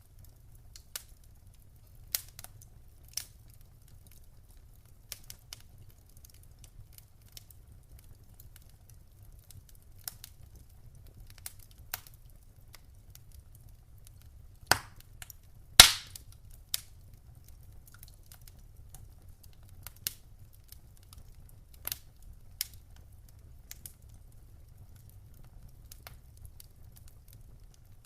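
Wood fire crackling: sparse, irregular sharp pops, the two loudest about a second apart near the middle, over a faint steady low rumble.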